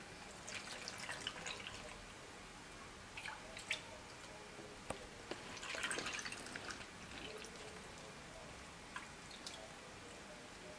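Pickling brine poured from a small plastic cup through a plastic strainer into a glass jar of peppers: faint trickling and dripping in a few bursts, the longest about six seconds in, with a few light clicks.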